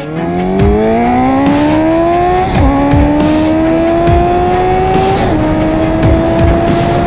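Honda CB 650F inline-four engine through a full 4-2-1 aftermarket exhaust, accelerating hard through the gears: the pitch climbs steadily, drops at upshifts about two and a half and five seconds in, and climbs again. Music with a steady beat plays under it.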